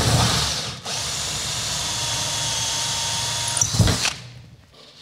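Power drill with a hole saw cutting a round hole through GIB Aqualine wallboard. It makes a rough, noisy cut for about the first second, breaks briefly, then runs steadily with a high whine. A short louder burst comes just before four seconds, and then the drill winds down.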